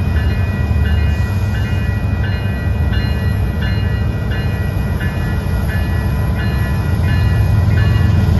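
Grade crossing warning bell ringing at about two strokes a second over the low rumble of an approaching freight train, which grows louder near the end.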